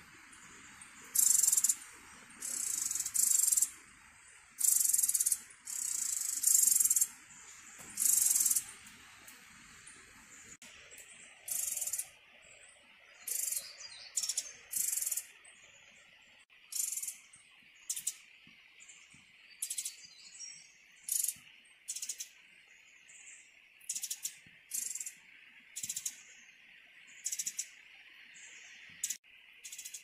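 Tropical forest sounds: short, very high-pitched chirps repeat about once a second, thinning out and getting shorter about halfway through, over a steady high insect drone.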